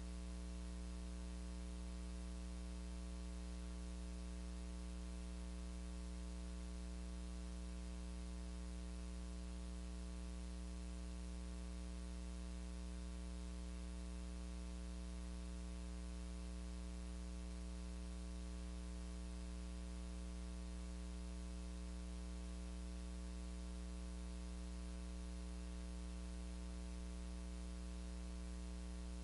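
Steady electrical mains hum with a layer of hiss, unchanging, with no other sound over it.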